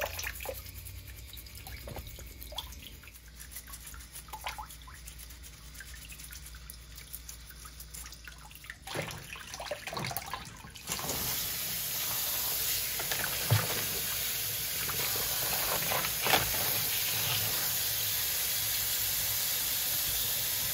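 Kitchen tap trickling into a plastic basin of water in a steel sink, with faint clicks and scrubbing as crab shells are brushed with a toothbrush. About eleven seconds in, the tap runs harder and there is a steady rush of water pouring into the basin.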